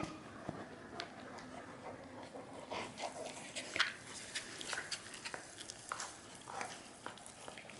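Dogs playing with a toy: a string of light clicks and scuffles, with a few short squeaky sounds about three seconds in and again near the end.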